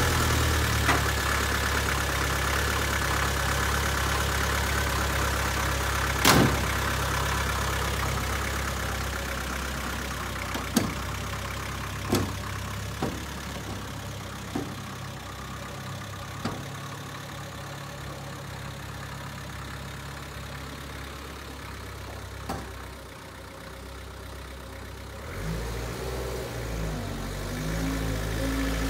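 1962 Land Rover Series 2A's 2.25-litre diesel engine running as the truck creeps along in four-wheel-drive low range, fading as it moves off and growing louder again near the end. Several sharp clanks come through, the banging of the broken ring and pinion in the rear differential.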